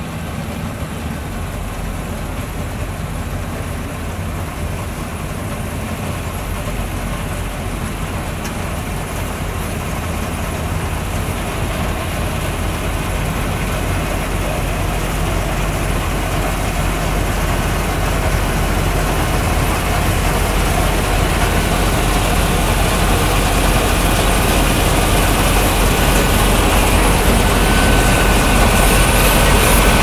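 Balkar combine harvester's engine and threshing machinery running steadily while harvesting paddy, the sound growing steadily louder as the machine comes close.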